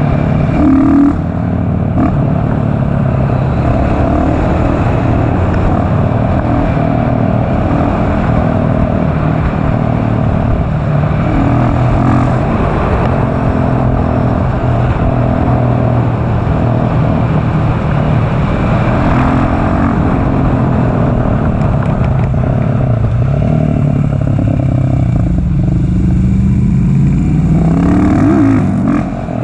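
KTM SMC R supermoto's single-cylinder engine running under way, heard from on the bike, its pitch wandering with the throttle. Near the end the revs climb steadily, then drop off briefly.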